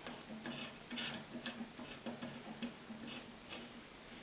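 Dial of a La Gard three-wheel mechanical combination lock being spun to the left, the mechanism giving faint, irregular clicks a few times a second as the factory-set combination 50 is dialled in.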